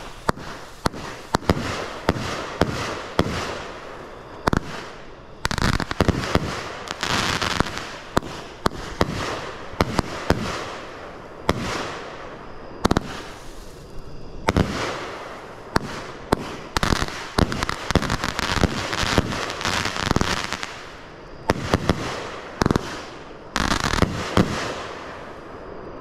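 Texas Outlaw 'Mechanized' 25-shot 500-gram consumer fireworks cake firing in mixed-cadence volleys of mines and aerial shells. Sharp launch thumps and bangs come singly and in quick clusters, with noisy hissing, crackling stretches between them. The last loud bangs come about a second before the end.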